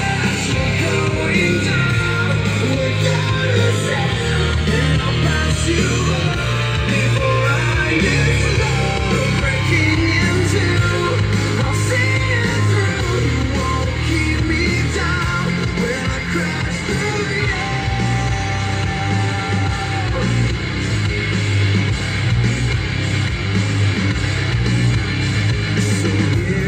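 Eltronic 20-53 portable party speaker playing a song with singing and heavy bass, loud, as a sound demo.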